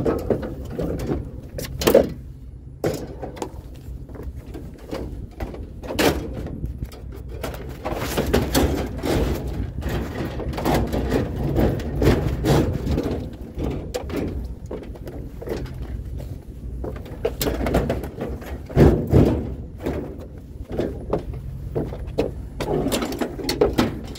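Irregular clunks, knocks and scrapes of objects being handled and moved, with a steady low rumble underneath; the sharpest knock is about 2 seconds in and a loud cluster of thumps comes near 19 seconds.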